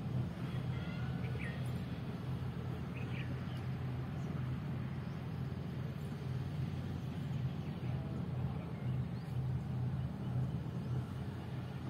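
Steady low rumble of wind buffeting a phone microphone, with a few faint, short bird calls in the first few seconds.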